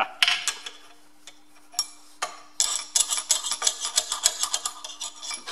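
Light metallic taps and clinks of a steel rod being knocked up against an old bearing cup stuck in a Ferguson TE20 rear axle bearing housing, to free it. A few scattered taps at first, then a quick run of taps over the last few seconds.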